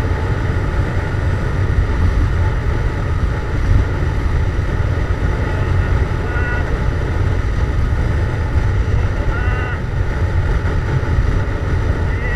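Yamaha MT-07's parallel-twin engine running steadily under way through a Jeskap GP aftermarket exhaust, a deep continuous rumble. A few brief high chirps sound over it in the second half.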